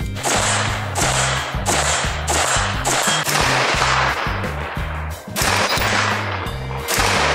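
Background music with a steady, driving beat: heavy low notes that step in pitch under sharp percussive hits about twice a second.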